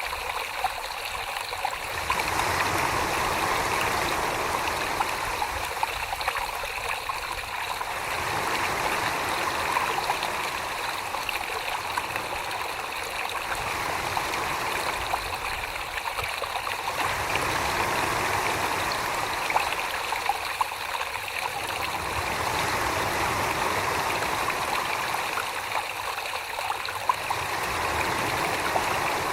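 Wet clay being worked by hand on a spinning potter's wheel: a steady watery swishing of slurry, swelling and easing about every five seconds, with a few small clicks.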